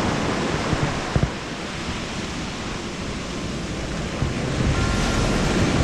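Surf breaking and washing up a gravel beach, with wind buffeting the microphone; it eases about a second and a half in and swells again near the end. A couple of light knocks about a second in.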